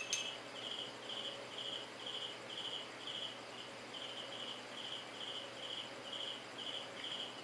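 A cricket chirping steadily, about two to three high chirps a second, with a sharp click at the very start.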